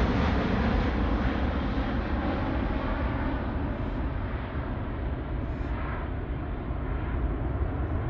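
Airbus A380-800's four Rolls-Royce Trent 900 turbofans at takeoff power: a low, steady rumble that slowly fades as the airliner climbs away.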